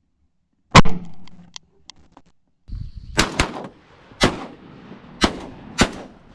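Shotgun shots at passing teal. One loud shot comes just under a second in. About two seconds later a run of five more follows, two of them nearly together, each with a short echo.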